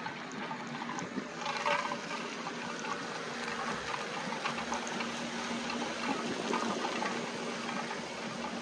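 Water moving and lapping, an even wash of noise, with a faint steady hum joining about halfway through.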